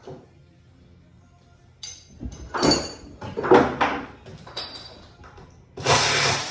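Work on wall framing while its fasteners are pulled: a run of irregular scraping and knocking noises with a brief high squeal, then near the end a short, steady burst of loud noise like a power tool run for under a second.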